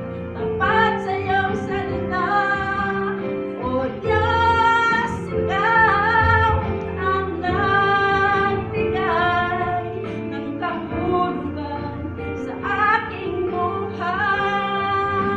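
A woman singing a Tagalog worship song solo into a handheld microphone, in phrases a second or two long, over an instrumental accompaniment of held chords.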